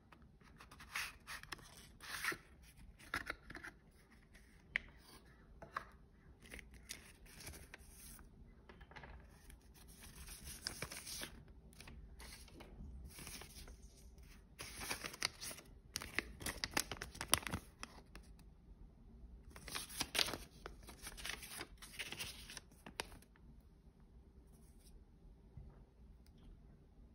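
Paper and cardboard packaging being handled: rustling, sliding and crinkling with light taps, in irregular spells that quieten near the end.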